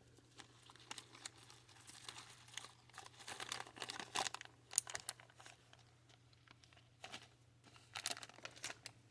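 Packaging crinkling and rustling in short, irregular bursts with small clicks as bagged bead strands are handled. It is busiest in the middle and again near the end, with a brief lull between.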